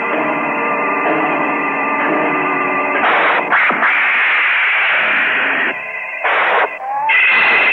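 Monster-movie soundtrack from an old TV broadcast: sustained music chords, then loud hissing bursts of noise about three seconds in and again near the end as Baragon's rainbow ray is fired.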